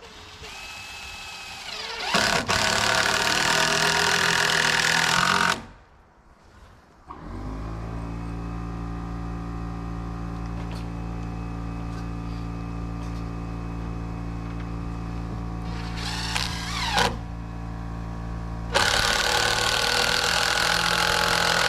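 Power driver running in two long, loud stretches of about three seconds each, sinking long screws into roof framing. Between them a steady machine hum starts suddenly and holds.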